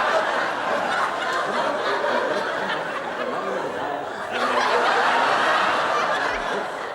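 Studio audience laughing, the laughter dipping a little and then swelling again about four seconds in.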